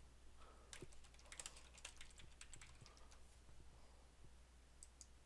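Faint, irregular clicking of a computer keyboard being typed on, over near silence.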